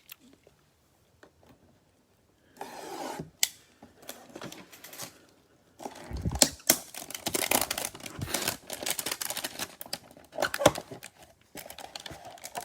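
Trading-card packaging being torn and crinkled, with cards clicking and sliding against each other as they are handled; quiet at first, then a dense run of crackling and clicking from about halfway in.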